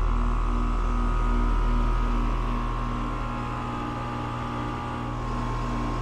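Carrier Sentry central air conditioner's outdoor condenser running: steady hum of its Copeland scroll compressor and condenser fan, with a faint whine and a low throb that pulses about two to three times a second. The sound drops a little about halfway through.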